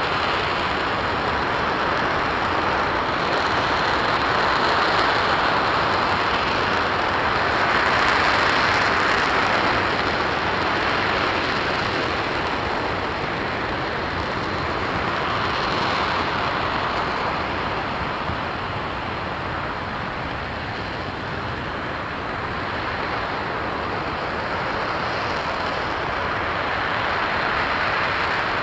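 RS-25 hydrogen-fuelled rocket engine firing at full thrust in a hot-fire test: a continuous, dense rushing roar of exhaust that swells and eases slowly without a break.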